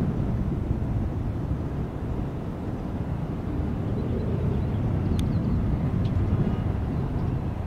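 Steady low rumble of jet airliner engines, with a brief click about five seconds in.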